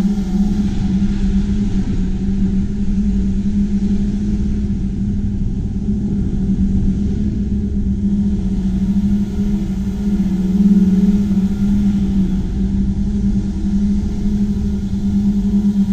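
Two-stroke chainsaw running at high speed through a cut, a steady high engine note that wavers slightly about ten seconds in.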